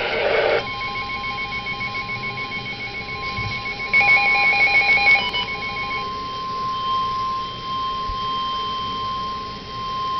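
NOAA Weather Radio warning alarm: a single steady 1050 Hz tone held throughout, signalling an alert about to be read. For about the first six seconds a second, rapidly pulsing beep sounds under it.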